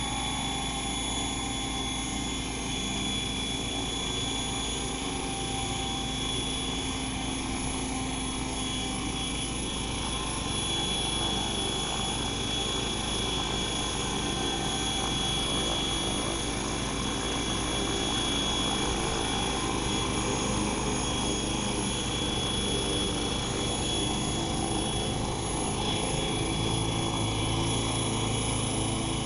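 Radio-controlled helicopter hovering and manoeuvring close by: the continuous drone of its motor and rotor blades, with a steady high whine on top.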